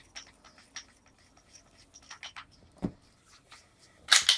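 Small scratchy clicks and rubbing of a moderator being unscrewed from the barrel of a Webley Alecto .177 multi-pump air pistol, with a soft knock about three seconds in. Near the end comes a short, loud rush of air as the pistol's pump arm is worked.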